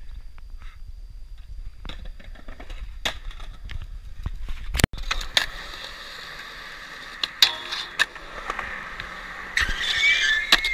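Skateboard wheels rolling over concrete, with sharp clacks of the board against the ground; near the end, a loud pop for a jump, followed by a scrape.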